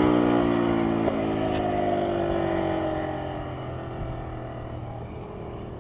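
Ducati 959 Panigale's L-twin engine running under throttle and fading steadily as the bike rides away, with a brief break in the note about a second in.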